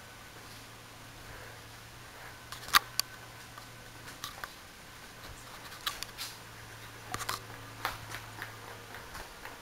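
Two sharp clicks close together about three seconds in, then scattered lighter clicks and taps, over a steady low hum.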